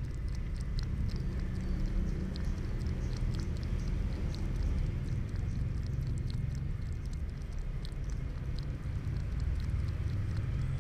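A cat feeding from a plastic cup right at the microphone: many small, irregular clicks from its mouth and tongue over a steady low rumble.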